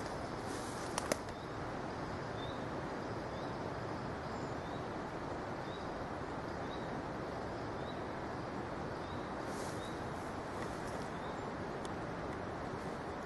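A small bird repeats one short high chirp about every three quarters of a second, over a steady hiss of background noise. Two sharp clicks come about a second in.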